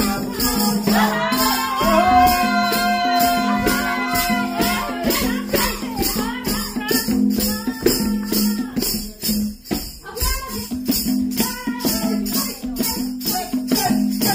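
Dance music played loud: a fast, steady rattling percussion beat under a sung melody, with long held notes in the first few seconds.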